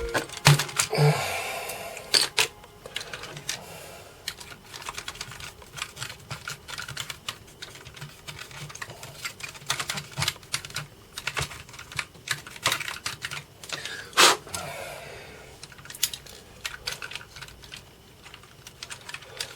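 Irregular plastic clicks and taps from a Commodore 64C keyboard as keycaps are pushed onto the key stems and pressed, with one louder click about fourteen seconds in.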